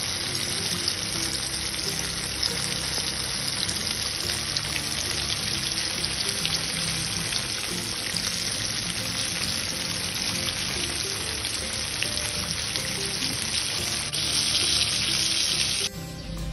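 Battered chicken pieces deep-frying in hot mustard oil, a dense steady sizzle that gets louder for the last couple of seconds before cutting off suddenly.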